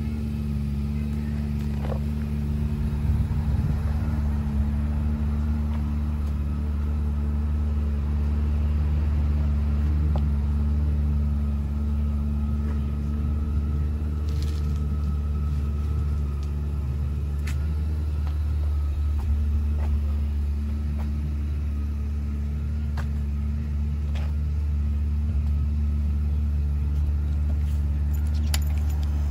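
Honda CRF250L's single-cylinder four-stroke engine idling steadily through a Yoshimura aftermarket muffler, with a few faint clicks.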